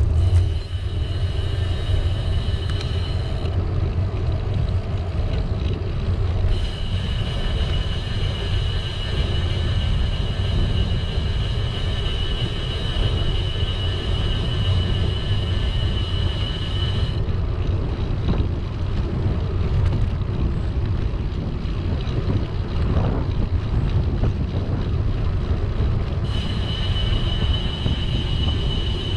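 Ride noise of a bicycle rolling along tarmac on road tyres: a steady low rumble of wind on the microphone and tyres on the road surface. Over it, a thin high whine comes and goes, cutting out for a few seconds twice.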